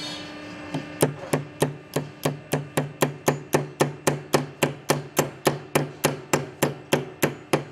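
Hammer tapping a spring steel hammer-on beam clamp onto the edge of a steel beam: a steady run of quick, even blows, about three to four a second, starting about a second in.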